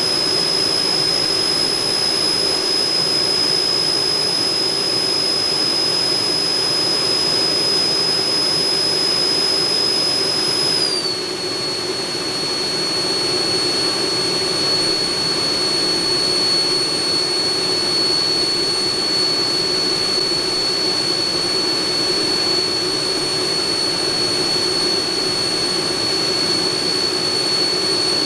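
Schübeler electric ducted fans running during a ground test of newly fitted Castle ESCs: a loud, steady high whine over rushing air. About ten seconds in the whine steps down to a lower pitch as the throttle is eased back.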